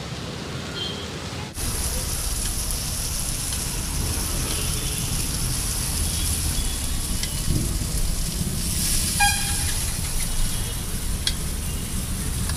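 Masala-coated fish and crabs frying in oil on a large flat griddle (tawa): a steady sizzle that sets in about a second and a half in, over the low rumble of road traffic. A short horn toot stands out about nine seconds in.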